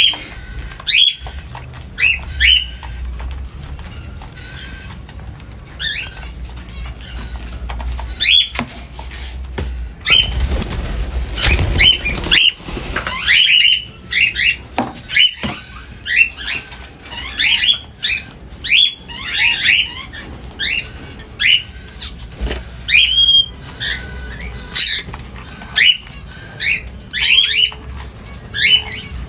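A flock of cockatiels calling over each other at the feeders, a constant run of short rising chirps, with a rush of wing flapping about a third of the way in.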